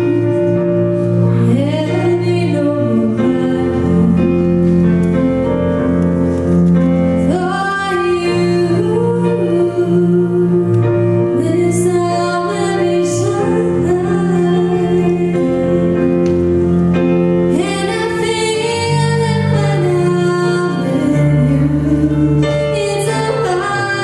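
A woman singing a song into a microphone, her voice carried on long held notes over sustained accompanying chords that change every few seconds.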